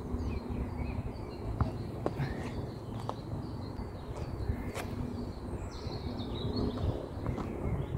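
Wind buffeting the microphone with a steady low rumble, and birds chirping now and then.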